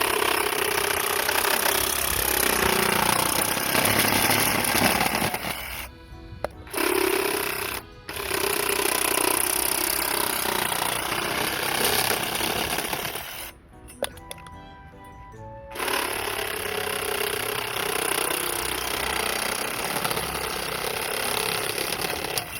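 Reciprocating saw with a thick PVC/PE pipe blade cutting through plastic pipe, running in four stretches with short pauses between; the longest pause comes about two thirds of the way through.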